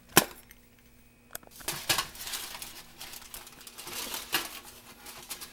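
A sharp knock just after the start, then aluminium foil crinkling and rustling in several bursts as pizza slices are handled on a plate.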